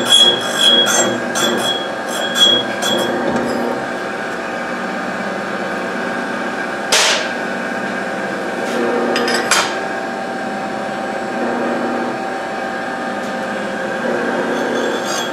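Connecting-rod cap grinder's motor and stone running steadily. Over the first few seconds a steel connecting rod is passed across the stone in a rapid series of grinding strokes with a ringing tone, facing the rod's parting face flat. A short hiss comes about seven seconds in and a few clicks follow as the next rod is clamped.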